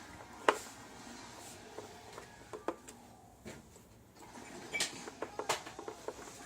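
A few sharp, separate metal clicks and clinks, the loudest about half a second in, from a Phillips screwdriver and small screws being worked out of a Technics SL-1200 MK2 turntable.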